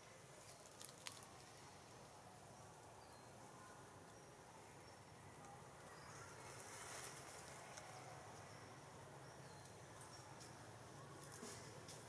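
Near silence: faint outdoor ambience, with two soft ticks about a second in and a brief faint high hiss around the middle.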